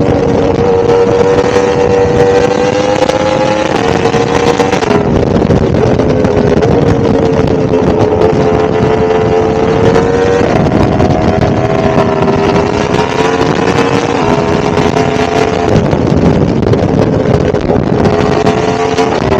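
1000cc motorcycle engine running at a relaxed cruise, its note creeping up slowly and dropping back several times as the throttle eases or the gears change.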